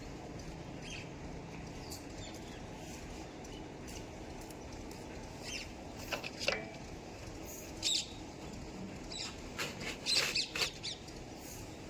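A steady low rumble with a cluster of short, sharp high chirps or squeaks in the second half, some sliding down in pitch.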